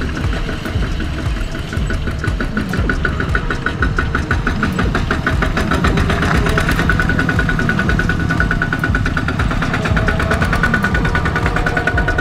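Two-wheel walking tractor's single-cylinder diesel engine running under load with a rapid, steady clatter as it hauls a trailer through mud and water.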